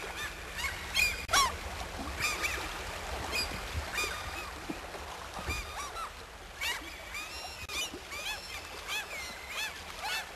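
A flock of water birds calling, many short rising-and-falling cries overlapping in quick succession over a low steady hum.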